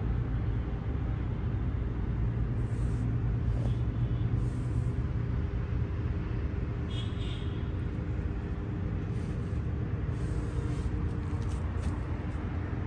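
Steady low rumble of background noise with a faint hum, even in level throughout, and a few faint high chirps or clicks.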